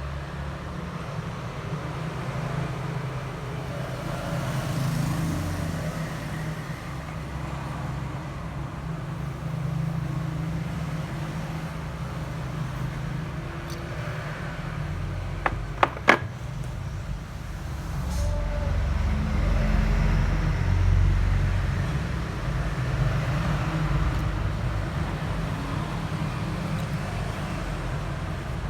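Steady low background rumble that swells and fades, with a few sharp clicks a little past halfway.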